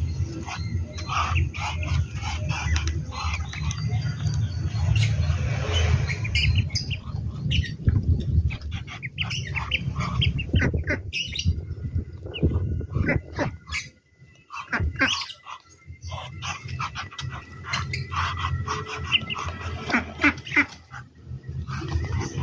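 A flock of ducklings peeping in many short, high calls over a low rumble, with a short lull about two-thirds of the way through.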